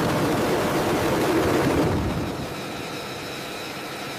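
Fighter jet engine running on the ground: a loud rush of noise for about the first two seconds, then a steadier hiss with a high whine.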